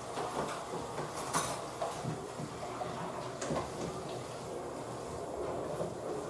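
Steady room noise with a few light clicks and knocks, the loudest about one and a half seconds in.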